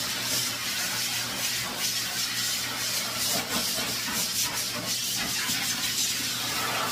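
High-velocity dog dryer blowing a steady, strong hiss of air through its hose and nozzle onto a wet golden retriever's coat, the hiss flickering in strength as the nozzle moves over the fur.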